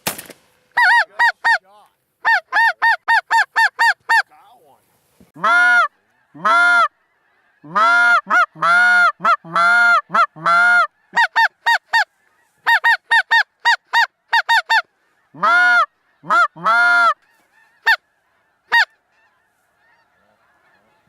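Snow goose calls: short, high honks repeated in quick runs of several, with pauses between the runs. The calls thin out to a few single honks and stop a couple of seconds before the end.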